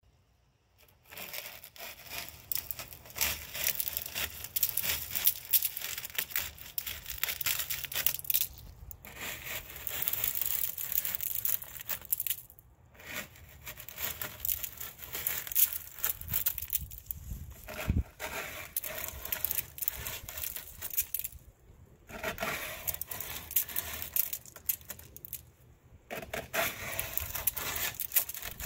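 A plastic scraper scrapes encrusted zebra mussel shells off a pontoon tube, making a dense crunching and crackling of shells breaking loose. It comes in spells with short pauses between strokes, starting about a second in.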